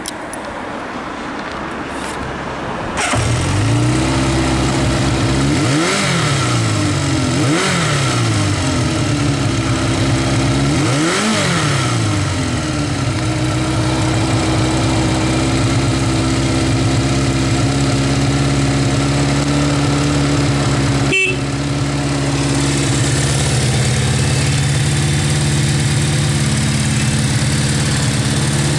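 Kawasaki Z550FX air-cooled inline-four on its stock exhaust, started up about three seconds in. It is blipped three times, each rev rising and falling quickly, and then settles into a steady idle.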